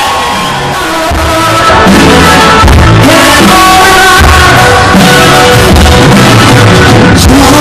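Live band music over a stage sound system, with a woman singing into a microphone in long held notes. The band comes in fuller about a second in, after a brief lull.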